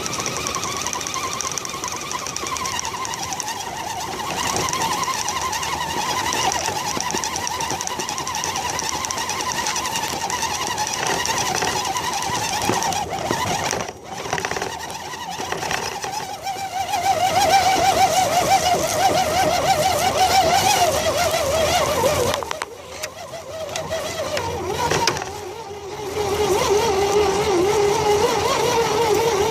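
Electric drive motor and gears of an Axial SCX10 RC crawler whining as it drives, the pitch wavering and shifting with throttle. It eases off twice in the second half, once briefly and once for a few seconds.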